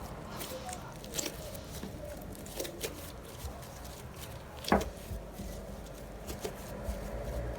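Clear slime being stirred in a bowl with dye mixed in: soft sticky clicks and squelches, with one sharper click a little under five seconds in.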